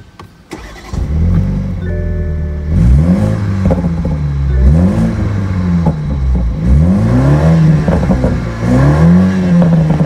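Toyota GR Supra SZ's 2.0-litre turbocharged inline-four, heard from inside the cabin, starts about a second in. It then idles and is revved in Park in a series of quick blips, its pitch rising and falling about half a dozen times.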